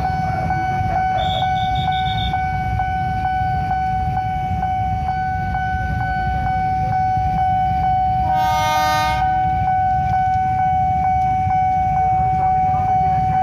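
Level-crossing warning alarm sounding a steady electronic tone with a faint regular tick about twice a second, over a low rumble. About eight seconds in, a KRL electric commuter train sounds one horn blast lasting about a second.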